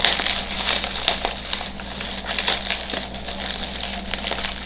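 Bubble wrap crinkling and crackling in a steady run of irregular small crackles as hands squeeze and work at it.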